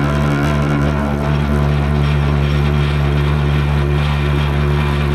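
Shop power tool working a chromoly axle shaft, running at constant speed: a steady low motor hum with an even hiss above it.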